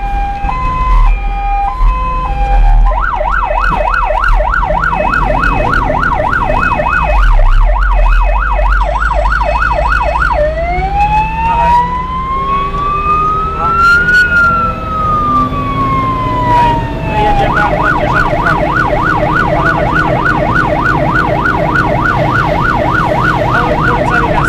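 Electronic emergency-vehicle siren cycling through its modes. It starts with a stepped two-tone hi-lo, switches about three seconds in to a fast yelp of about four sweeps a second, then gives one slow wail that rises and falls, and returns to the fast yelp. A truck engine drones low underneath, heard from inside the cab.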